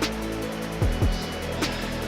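Electronic background music with a beat: deep bass kicks that drop in pitch and sharp snare-like hits over held tones.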